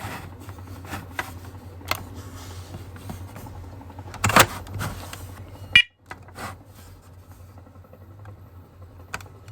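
Clicks and knocks of a plastic Onelink talking smoke and carbon monoxide alarm being handled and set up, over a low steady hum. One short electronic beep from the unit sounds about six seconds in.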